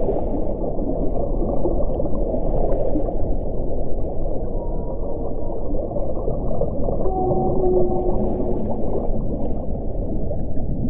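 Underwater recording of whale calls: a few short, held, moaning tones over a dense, low rushing background noise.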